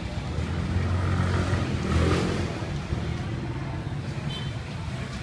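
A motor vehicle passing on the street: its engine noise swells to a peak about two seconds in and then fades, over general street noise.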